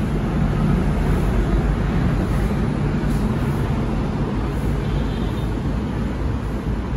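Steady road traffic noise, a continuous low rumble with no distinct events.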